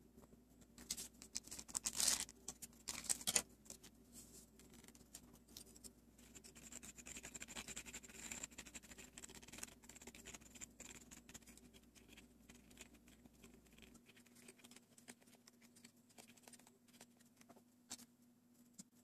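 Close handling of a plastic DIY candy-kit tray: a cluster of sharp crackles and taps in the first few seconds, then soft scraping as a small plastic spoon works the mix, with scattered faint ticks after.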